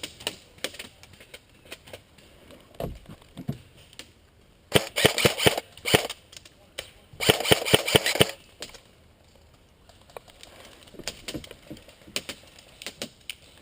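Airsoft rifle fire: two rapid automatic bursts near the middle, each a little over a second long, with scattered single shots before and after.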